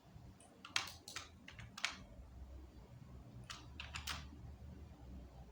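A few scattered, faint clicks of computer keyboard keys and a mouse being pressed, over a low steady room hum.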